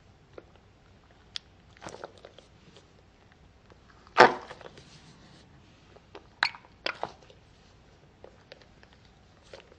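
Hands squeezing a soft chocolate mochi-cake squishy toy: a handful of short, sharp sounds from the toy's soft skin being pressed and worked, the loudest about four seconds in as it is squeezed hard in a fist.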